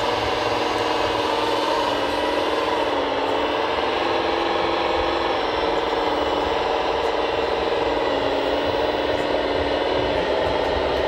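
Scale RC Bobcat T770 compact track loader's electric motors whining steadily while it works, the pitch shifting a little a couple of times as the drive and lift change load.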